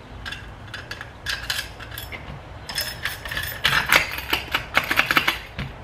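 Keys jingling and metal clicking at a door lock as the door is locked up, in a flurry of clinks that is busiest in the second half.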